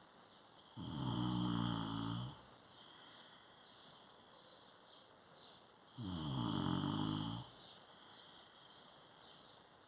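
A sleeper snoring: two long snores, each about a second and a half, about five seconds apart, with quiet breathing between.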